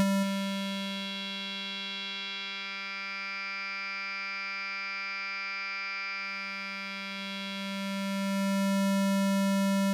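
A single held note from the Spectra additive resynthesizer at a steady pitch, its tone shifting as generator 1's spectrum morph amounts are swept on an XY controller. Some overtones fade out and the sound grows brighter and louder near the end, then it cuts off suddenly.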